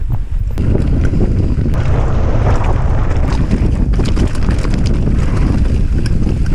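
Heavy wind buffeting on the microphone of an action camera mounted on a mountain bike riding fast downhill, with scattered clicks and rattles from the bike on a rocky trail.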